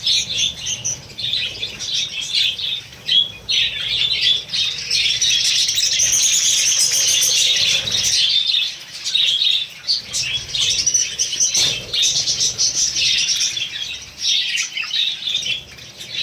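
A flock of lovebirds and budgerigars chattering and chirping continuously, many birds at once, with some wing flapping among them.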